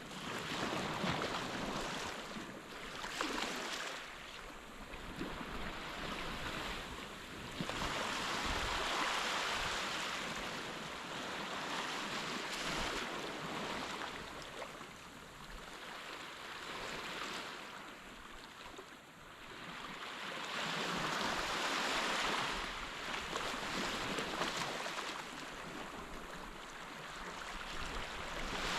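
Waves washing onto a sandy beach: a steady hiss of surf that swells and fades every few seconds.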